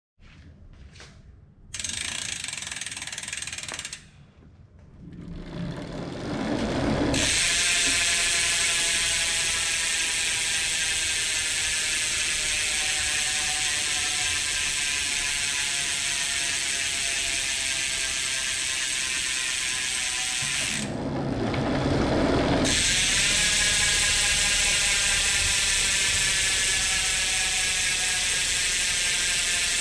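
Hope Pro 4 rear hub freewheeling: a loud, continuous pawl-ratchet buzz from the coasting wheel that slowly drops in pitch as the wheel slows. About 21 s in, the wheel is spun up again and the buzz restarts higher, then slowly falls once more.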